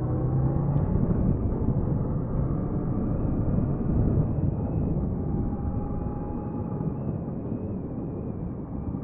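Motorcycle on the move: the engine note holds steady for about the first second, then gives way to a dense rushing ride noise that slowly eases.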